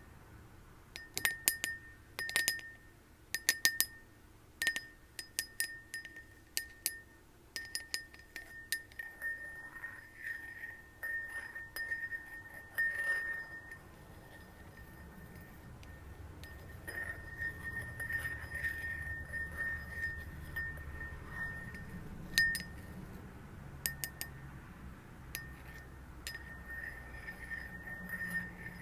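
Glass tapped again and again, each tap a sharp click that leaves the glass ringing at one steady pitch. The taps come in quick clusters for the first several seconds, then more sparsely, among softer rubbing sounds.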